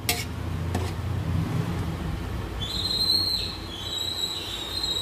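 A slotted metal spoon knocking against a large aluminium pot as steamed biryani rice is turned over, twice in the first second, over a steady low rumble. A thin, wavering high whine comes in about halfway and keeps going.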